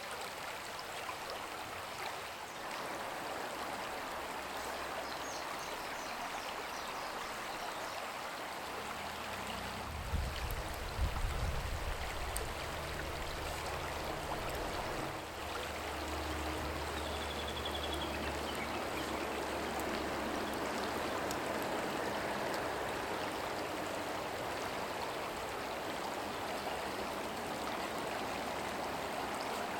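Steady sound of running or bubbling water, with a low rumble from about ten to eighteen seconds in.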